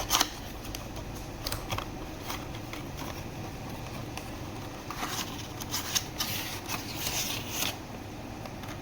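Handling of earphone packaging: a sharp click just after the start, scattered small clicks, and a stretch of crinkling, rustling paper or plastic between about five and seven and a half seconds in, over a steady hiss of rain.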